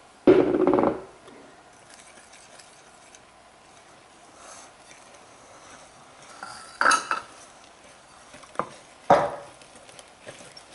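A wire whisk and hands knocking against a glass mixing bowl while flour is stirred in: a short loud scrape about half a second in, then quiet mixing, then a few sharp clinks in the second half.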